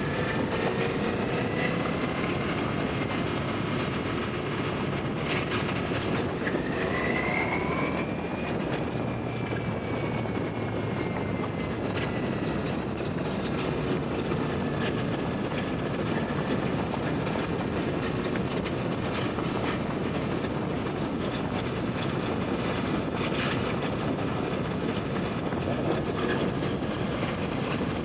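Motorcycle on the move: steady engine and wind and road noise on the camera's microphone, with a short rising whine about seven seconds in.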